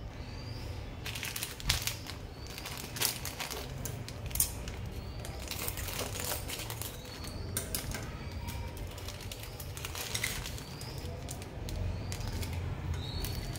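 Thin plastic packets crinkling as they are snipped open with scissors, and dried chirata (Swertia) stems rustling as they are tipped out onto a plate: a run of sharp crackles and clicks starting about a second in.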